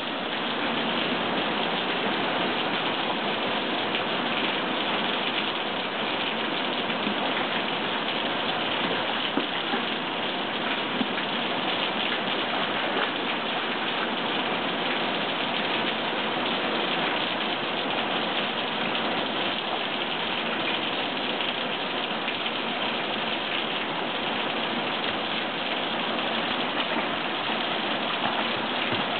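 Steady rain falling, an even hiss that holds without let-up.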